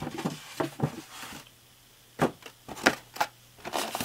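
Cardboard box and plastic packing tray being handled: a string of sharp clicks and knocks with short stretches of rustling.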